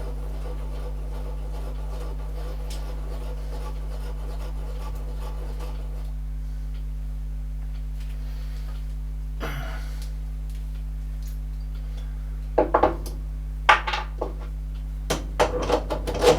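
Steady low electrical hum, with a series of short clanks and knocks of tools and metal parts being handled, starting about three-quarters of the way in.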